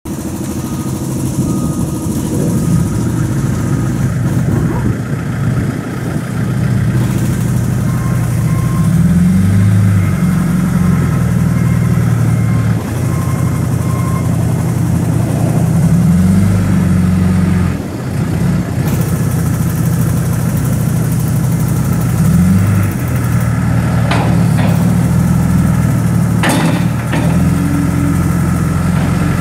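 2007 John Deere 310J backhoe's four-cylinder diesel engine running at idle, its note shifting briefly a few times. Two sharp knocks come near the end.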